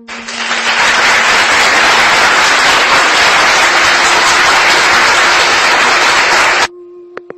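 A loud, steady rush of noise, like applause, that swells in over the first second and cuts off suddenly near the end, over faint flute music.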